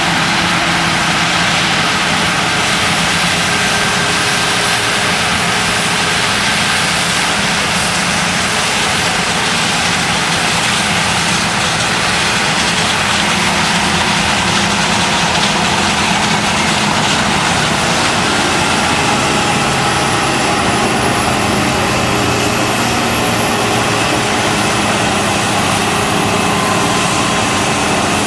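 John Deere 9770 combine harvester running steadily in wheat, a constant machine drone with several steady tones over a broad hiss.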